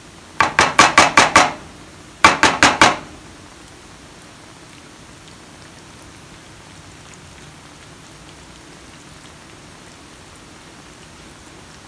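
A wooden spoon knocked rapidly against the rim of a glass baking dish: a quick run of about six taps, then a second run of about four.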